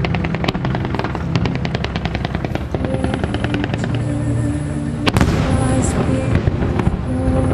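Fireworks firing: a rapid string of sharp reports, about nine a second, for the first two and a half seconds, then one loud bang about five seconds in. Music with sustained notes plays underneath.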